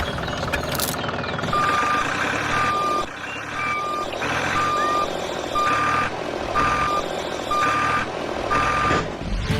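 Vehicle reversing alarm beeping, eight even beeps about one a second, over a steady mechanical running noise.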